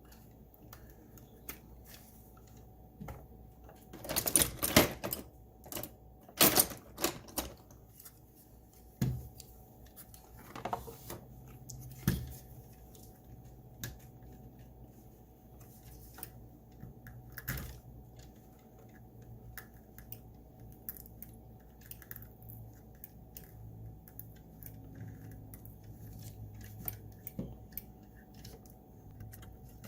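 Irregular clicks, taps and short scraping bursts of hands and tools working the chewed-up rubber tires off a Roomba i7's plastic drive wheels, the loudest bursts about four and six and a half seconds in.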